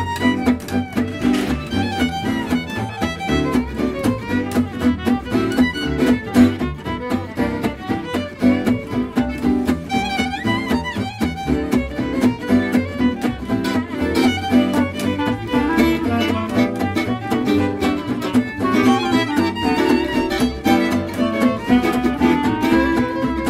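Gypsy jazz jam: a violin plays the lead melody over an acoustic guitar keeping a steady strummed beat.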